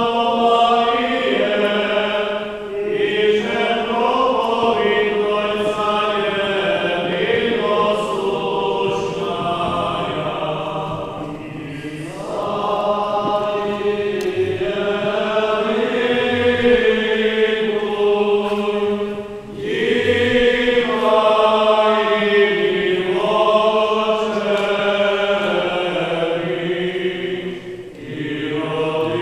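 A group of voices chanting a Byzantine-rite wedding hymn in long sustained phrases, with short pauses between them about every eight seconds. This is the chant sung while the couple is led in procession around the altar table.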